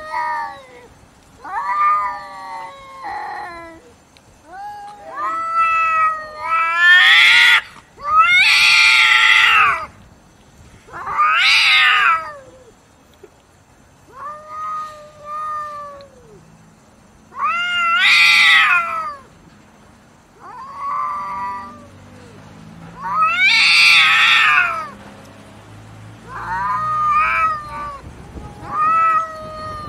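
Two cats yowling at each other in a standoff over food: long, wavering, drawn-out threat calls that rise and fall in pitch, repeated every few seconds, some soft and some loud.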